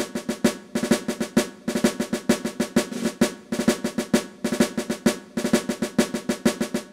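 Percussion-driven intro music: a quick, even run of drum and snare strikes over held notes, fading out near the end.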